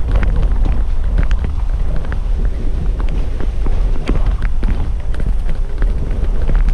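A vehicle driving over a rough, rocky unpaved road: a loud low rumble with frequent short knocks and rattles as it jolts over stones.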